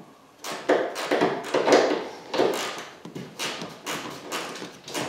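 Ratcheting box-end wrench clicking in short repeated strokes, roughly one and a half a second, as it backs off a bumper strip nut.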